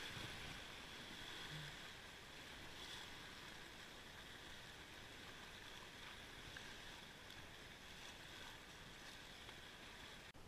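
Faint, steady rush of river water running over a shallow rapid.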